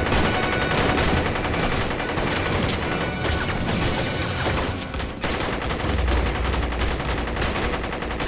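Dense battlefield gunfire: rapid machine-gun fire and rifle shots overlapping without pause. A deep low rumble joins in about six seconds in.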